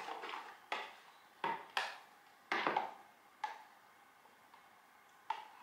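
Spoon knocking and scraping against the sides of a plastic measuring jug while stirring and scooping thick yogurt: a handful of short, sharp taps, then one more near the end.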